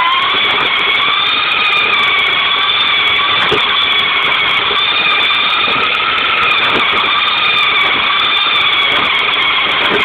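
Remote-control car's motor and gears whining loud and close, the pitch climbing as it speeds up and then holding high with a slight waver. A few knocks come through as the car jolts over the pavement.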